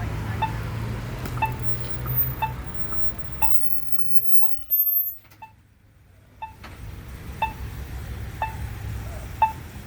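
Accessible pedestrian signal push button (Polara Navigator-style) sounding its locator tone: a short high beep repeating about once a second. A low traffic rumble runs underneath for the first few seconds, and a brief louder noise comes a little before the middle.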